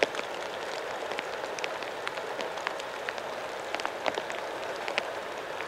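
Steady rush of a swollen, fast-flowing river, with scattered light ticks over it.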